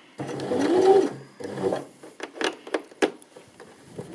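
Janome 725s sewing machine stitching in a short run, its motor rising in pitch as it speeds up, then stopping after about a second. A few light clicks and taps follow as the fabric is repositioned.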